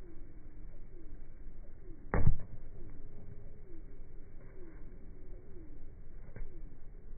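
A single loud slap of a hand spiking a volleyball about two seconds in, heard as slowed-down slow-motion audio. Behind it a bird calls over and over, a faint falling-and-rising tone repeated about every half second.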